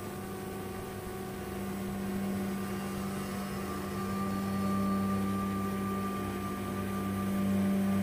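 Background ambient music: sustained low droning tones held steady with no clear beat, slowly growing louder.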